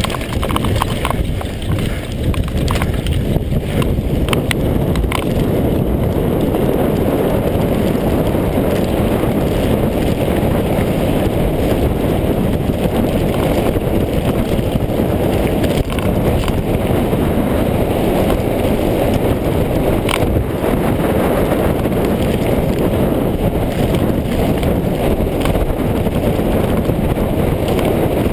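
Downhill mountain bike descending a loose gravel track at speed: a steady, loud rumble of tyres on gravel and wind on the microphone, with a few sharper clicks and rattles from the bike over rough ground.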